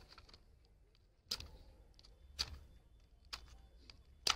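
Matchstick crackers being struck to light them: sharp clicks about a second apart, the last flaring into a hiss as one catches near the end.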